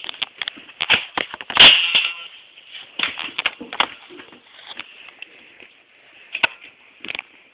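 Irregular clicks, knocks and scrapes of a handheld camera bumping and rubbing against a plastic toy, with one loud knock about one and a half seconds in and sparser clicks toward the end.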